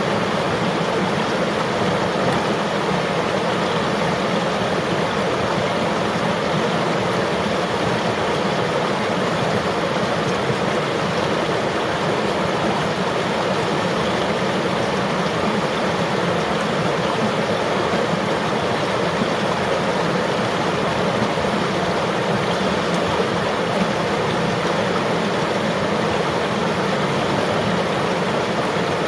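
River water flowing steadily over rocks, a dense, even rush of running water.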